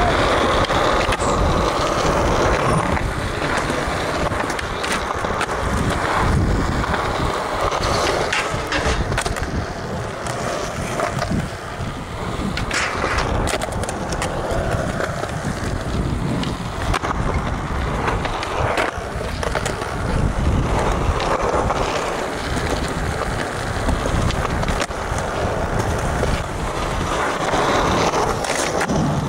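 Skateboard wheels rolling over concrete in a steady rumble, broken several times by sharp clacks of the board's tail popping and the board landing during flatground tricks.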